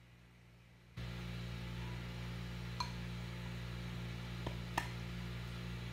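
Steady background noise with a low hum that cuts in abruptly about a second in, after near silence, with a few faint light clicks.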